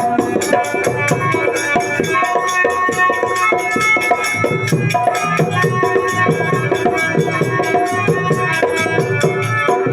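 Live accompaniment music: fast hand-drum strokes under held melody notes.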